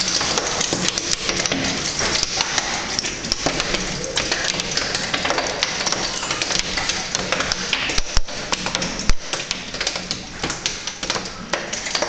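Heavy hail and rain pelting down: a steady hiss filled with many sharp clicks and taps of hailstones striking window glass and hard surfaces. A couple of heavier thuds come about two-thirds of the way in.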